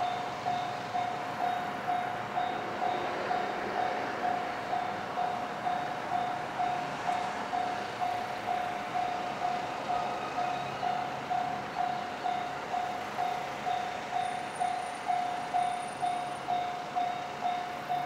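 Japanese railroad crossing's electronic warning bell ringing a single repeated tone at about two strikes a second, the crossing's signal that a train is approaching.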